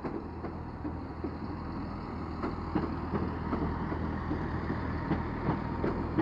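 Class 165 Turbo diesel multiple unit pulling out: a steady low engine drone with a few faint clicks from the wheels on the track, growing gradually louder as the carriages pass.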